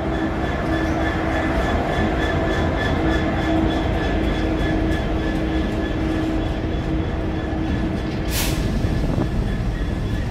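Class 66 diesel-electric freight locomotive, with its two-stroke V12 engine running, passing close by, followed by its container wagons rolling past with a steady rumble. The engine's steady hum fades out about eight seconds in, with a brief burst of hiss just after.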